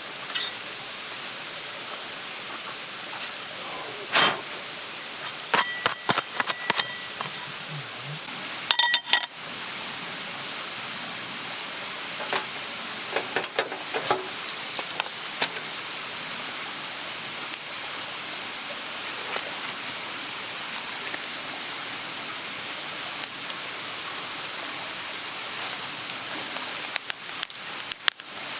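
Scattered clinks and taps of metal or glass camp cookware and utensils, a few with a short ringing tone, over a steady rushing hiss.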